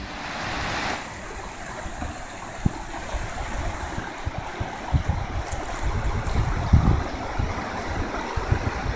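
Rocky creek running with a steady rush of water, with uneven low rumbles of wind on the microphone.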